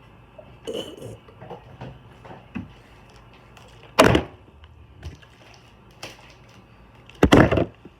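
A plastic water bottle thudding down on a hard surface as it is flipped: two loud thuds about three seconds apart, the second a double knock as it bounces, with a few lighter knocks between.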